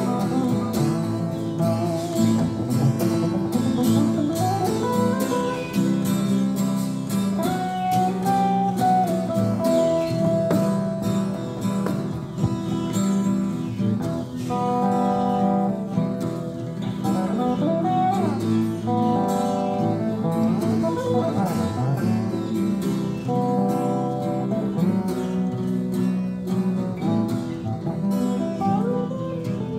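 Two acoustic guitars played together as an instrumental: steady strummed chords under a picked melody line that slides up and down between notes.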